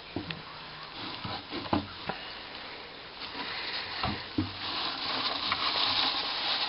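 Shredded-paper bedding rustling as a hand rummages through it in a plastic bin, with a few light knocks. The rustling grows louder about two thirds of the way in.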